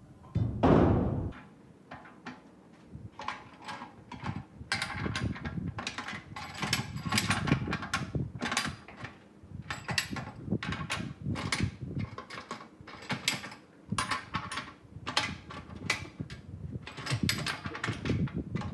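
Ratchet wrench clicking and metal clanking as the nuts on the steel mould ring inside a retreaded tractor tyre are worked loose, in quick irregular runs of clicks. A loud thump comes about half a second in.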